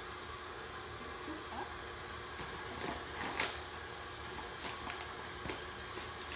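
Steady hiss with a few faint, light taps about halfway through, the strongest near the middle: flour being measured out with a cup into a bowl.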